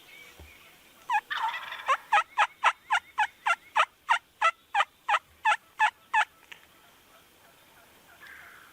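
A long run of turkey yelps, about three a second, each raspy note dropping in pitch, opening with one longer note. It fits a hunter working a turkey call to a bird or a hen turkey yelping.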